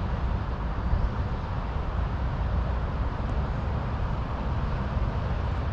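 Wind blowing across the microphone: a steady low rumble with an even hiss above it.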